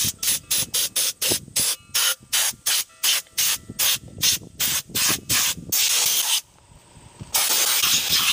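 Handheld compressed-air siphon blast gun bead-blasting an old Clinton small engine, fired in short bursts about three or four a second. Near the end it runs as one longer blast, stops for about a second, then resumes as a steady hiss.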